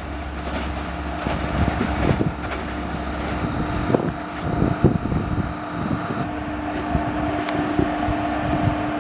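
Express passenger train running past at speed: a steady noise of the coaches with irregular wheel knocks and a steady hum.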